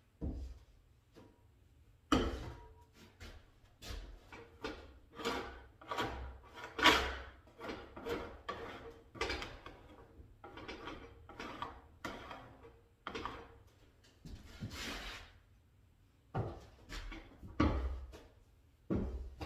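Metal paint scraper pushed in repeated strokes over a wooden door, about two a second, lifting paint softened by chemical stripper, with a short break near the end. The paint is tough and hanging on, with several coats.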